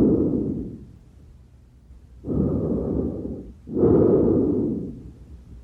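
Normal tracheal breath sounds recorded over the trachea: very loud breathing, each breath an in-sound and an out-sound of about equal length. One breath trails off in the first second, and a full in-and-out breath comes about two seconds in, with a quiet pause after each breath.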